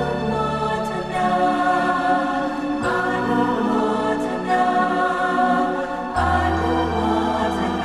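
Slow background music of long held chords, the harmony changing about every three seconds.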